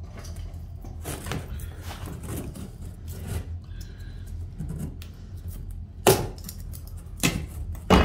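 Utility knife scraping along a vinyl flooring plank in a few short strokes. Then the plank cracks sharply as it is bent and snapped along its score lines: once about six seconds in, again about a second later, and loudest near the end as the notched piece breaks free.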